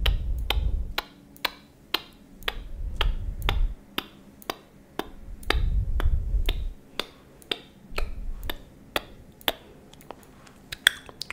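Sharp, close-miked clicks at a steady pace of about two a second, an ASMR clicking trigger, broken four times by low rumbling as hands move close in front of the microphone.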